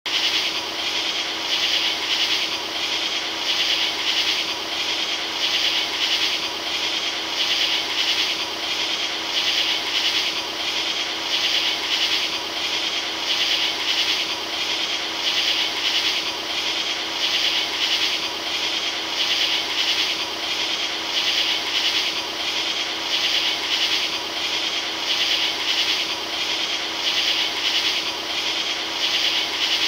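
Steady swishing hiss that swells and fades in an even rhythm, over a faint steady hum.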